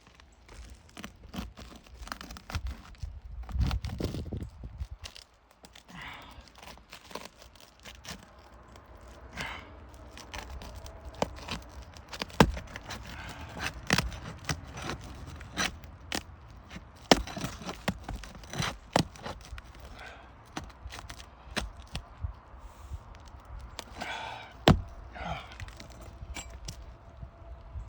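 Asphalt roof shingles being pried up: scattered sharp cracks, taps and scrapes as the tool works under the tabs and breaks them loose.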